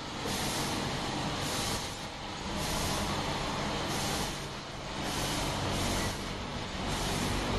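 Automatic filter-bag sewing production line running: a steady low machine hum with repeated stretches of hiss that come and go every one to two seconds.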